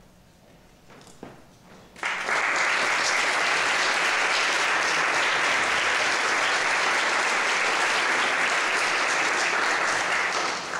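Audience applauding, starting suddenly about two seconds in, holding steady and fading out near the end.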